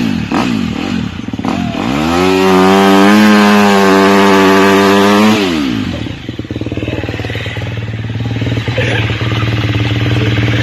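Husqvarna dirt bike engine blipped a few times, then revved up and held high for about three seconds before dropping back to a steady idle.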